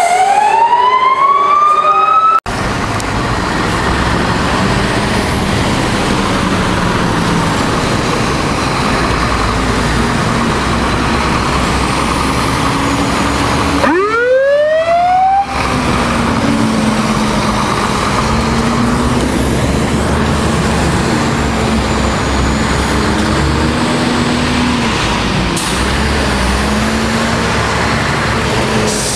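Fire truck sirens and heavy truck engines. A siren wails down and back up at the start. After that comes a loud, steady engine rumble, and about halfway through a siren winds up from a low pitch. The rumble then runs on with a low wavering tone over it.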